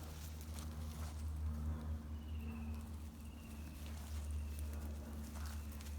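Footsteps and light cracking of twigs and leaf litter while pushing through bush undergrowth, over a steady low rumble. Three faint, short, high warbling calls come in the middle.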